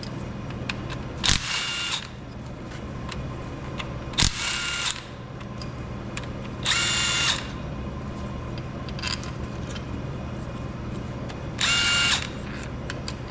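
Handheld electric drill-driver whining in four short bursts, each under a second, run to back out the bolts holding the pump housing on a Detroit 3-53 diesel. A steady low hum runs underneath.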